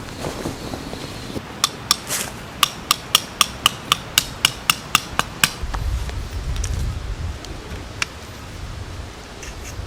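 A hammer striking metal: about fourteen sharp, ringing blows in a quick steady run of roughly four a second, stopping about halfway through.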